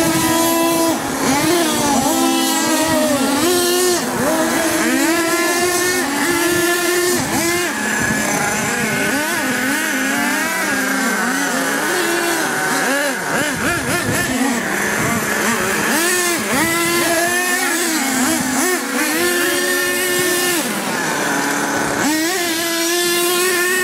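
Two radio-controlled monster trucks driving on gravel, their motors running with a pitch that keeps rising and falling as they speed up and slow down.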